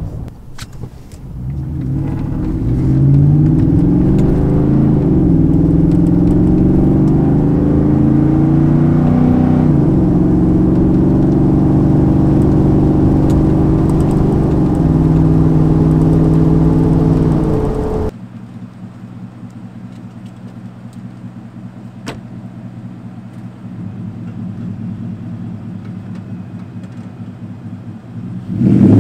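Ford F-150's 5.0 V8, resonator deleted and running through a MagnaFlow muffler, heard from inside the cab under hard acceleration: the engine note climbs in pitch and drops back at each of three upshifts. A little over halfway through it cuts to a much quieter, steady engine sound.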